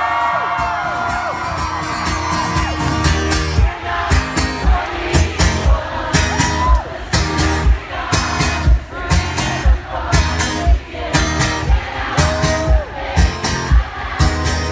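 Live rock band playing through a phone microphone, with voices whooping and shouting in the first second or so. About four seconds in, a steady beat of sharp drum hits comes in, about two a second.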